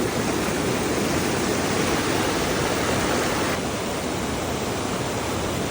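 Steady rush of fast-flowing stream water, a dense even roar; it turns a little duller about three and a half seconds in.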